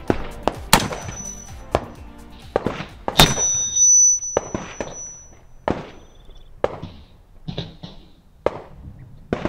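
Background music with a steady beat laid over shots from a Ruger Redhawk Hunter .44 Magnum revolver. The loudest shot comes about three seconds in and is followed by a high ringing tone that fades over a few seconds.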